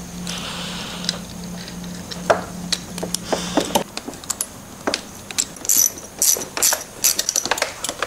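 Quick, irregular metal clicks and clinks of bolts, spacers and a hand tool as a Quad Lock phone mount is fitted and tightened on a motorcycle's front end. The clicks come thicker and sharper in the second half.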